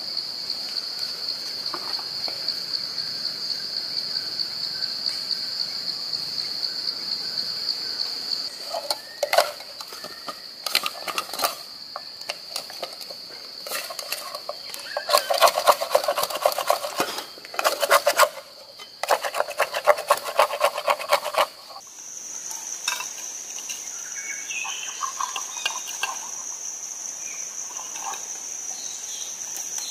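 Forest insects droning steadily at a high pitch, the drone shifting to a higher note about two thirds of the way through. In the middle there are spells of rapid metallic clinking, a spoon stirring in a steel cup.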